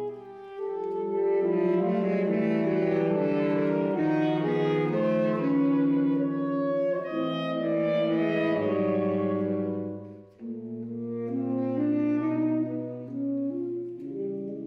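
Saxophone quartet playing sustained, shifting chords in a contemporary classical piece. The sound breaks off briefly about ten seconds in, then the chords come back in.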